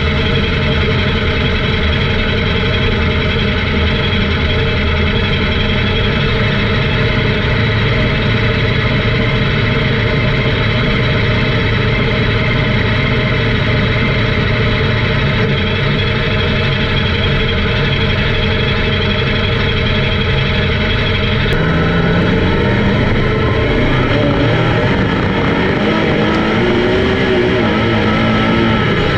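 Racing car engines running hard at speed, a loud steady drone. For the last several seconds, an engine's pitch climbs and falls as it revs up and shifts.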